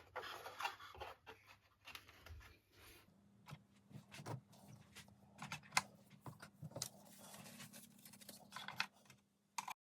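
Faint, irregular light clicks, taps and scratches of small wooden model-boat parts being handled and fitted on a workbench.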